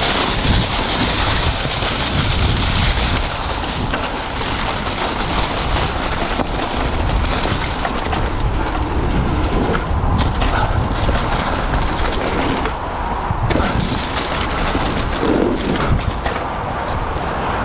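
Wind rushing over a GoPro's microphone as a mountain bike rides down a dirt trail, with steady tyre noise and scattered clicks and knocks from the bike over the ground.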